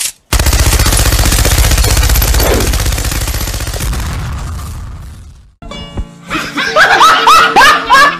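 Sound-effect burst of rapid machine-gun fire with a heavy low rumble, running into an explosion and dying away about five seconds in. Then a person laughing hard in quick repeated bursts.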